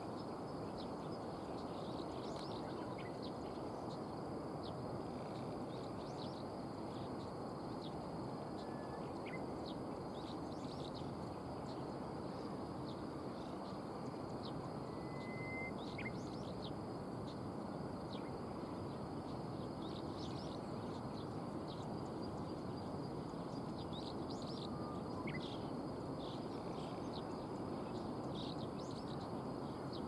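Steady outdoor background hiss with many short, high chirps of small birds scattered through it, and a few brief thin whistles.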